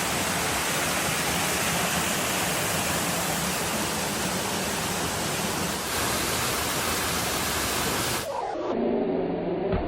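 Steady rushing water of a waterfall, a constant even roar. About eight seconds in it cuts off abruptly and is replaced by a quieter low, wavering pitched call.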